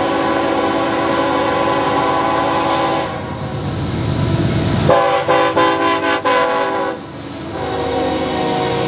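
Diesel locomotive air horn blowing: a long blast, a gap of about two seconds filled with a low rumble, a run of short broken toots, then another long blast.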